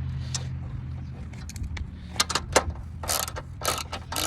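Ratchet wrench clicking in quick irregular runs while bolts are run down on the radiator crossbeam, with the clicks louder in the second half; a low hum fades out in the first second.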